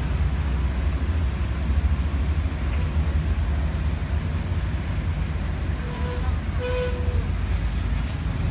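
Street traffic: a steady low rumble of motorbikes and cars passing close by, with two short pitched tones about six and seven seconds in.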